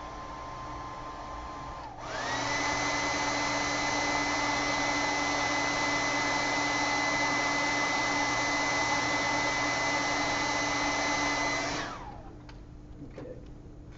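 Handheld hair dryer blowing steadily, then getting louder about two seconds in as its motor whine rises in pitch, and shutting off near the end.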